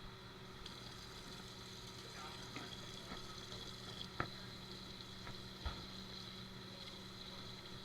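Restaurant dish-pit background: steady hum and hiss of kitchen equipment, with two sharp knocks of dishes about four and five and a half seconds in.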